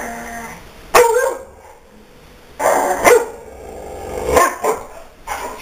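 Yellow Labrador retriever barking, about six loud barks at uneven spacing.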